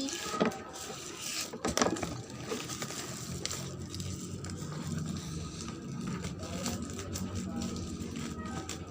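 A parcel being handled: a couple of sharp knocks in the first two seconds, then faint scraping and rustling.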